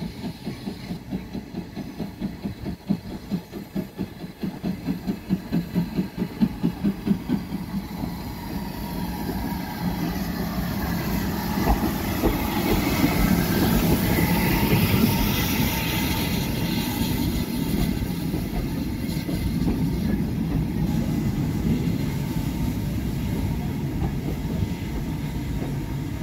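Ivatt Class 2MT 2-6-2 tank steam locomotive approaching with regular exhaust beats that grow louder, then running close past in a loud rush of motion and wheels on rail. Its coaches follow, rolling and clicking over the rail joints.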